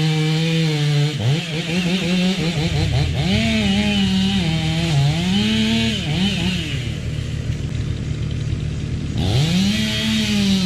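Two-stroke chainsaw running at high revs, its pitch rising and sagging again and again as it works through wood.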